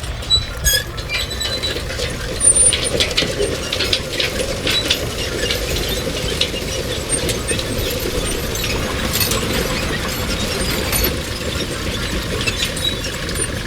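Machinery running with a steady low rumble, overlaid by many irregular metallic clicks and clanks.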